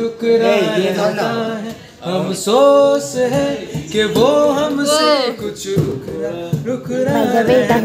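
A man singing a melody, some held notes wavering with vibrato, with an acoustic guitar accompanying him.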